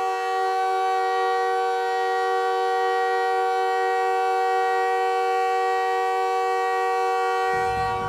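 Montreal Canadiens' arena goal horn sounding one long, steady chord-like blast. It holds at an even pitch and loudness, with a rumble of other noise coming in underneath near the end.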